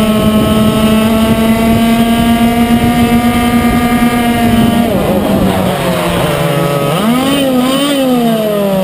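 Yamaha KT100 two-stroke single-cylinder kart engine, heard onboard, held at high steady revs on a straight. About five seconds in, the pitch drops as the throttle is lifted, then the revs waver and fall away for the bend near the end.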